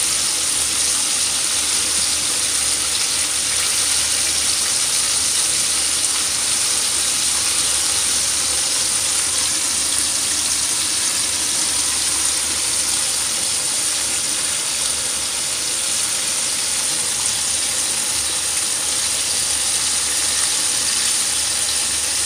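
Chicken-thigh pieces (karaage) frying in hot oil in a frying pan: a steady, even sizzle.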